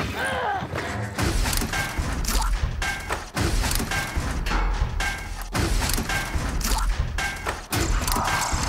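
Background music with heavy, pounding percussion and deep bass, a short figure at the same pitches repeating over a steady beat.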